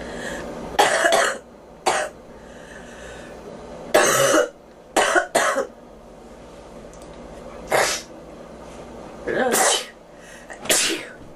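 A girl coughing repeatedly: about eight coughs, some in quick pairs, with pauses of a second or two between them.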